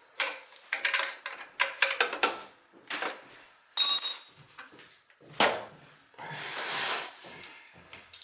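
Metal tools and parts clinking and clattering during work on an oil burner. There is a string of sharp knocks, one short bright metallic ring about halfway through, and about a second of rushing noise near the end.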